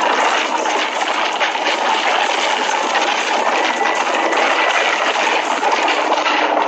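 Steady rush of wind and road noise from a Kawasaki ZX-14R sport motorcycle cruising at highway speed, picked up by a camera mounted on the bike. The engine is faint underneath.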